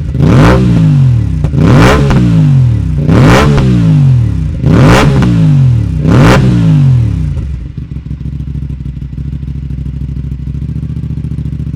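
Aprilia RS 457's parallel-twin engine through an SC-Project SC1-S full exhaust system, blipped sharply five times about a second and a half apart, each rev rising and falling quickly. It then settles to a steady idle from about two-thirds of the way in.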